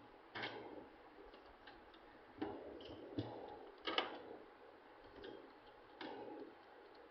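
Small sharp clicks and taps of a screwdriver and screws against the metal DVR case and hard-drive bracket as the drive's mounting screws are put in and tightened. There are about five clicks at uneven intervals, the loudest about four seconds in.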